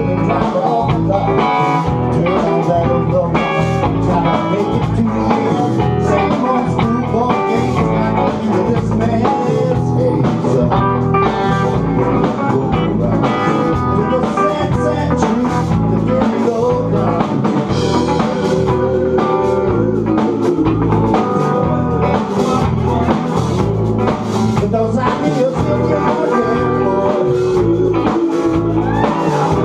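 A live blues-rock band playing loud, amplified electric guitars over a drum kit keeping a steady beat.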